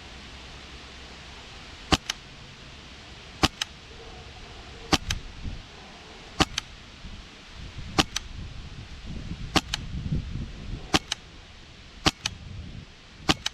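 PolarStar Kythera HPA airsoft rifle with a foam-filled silencer firing single shots, nine in all about one and a half seconds apart. Each shot is a sharp, fairly quiet click followed at once by a second, fainter click.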